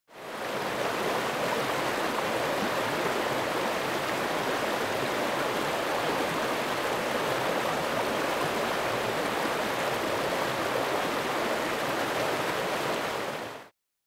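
Rushing creek water: a steady, even rush that fades in at the start and fades out about a second before the end.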